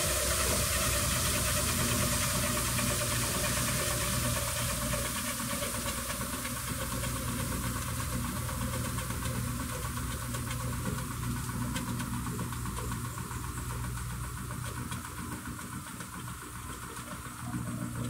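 Electrolux Turbo top-loading washing machine spinning its basket during the rinse: a steady motor hum under a hiss, the hiss strongest in the first few seconds and easing off after.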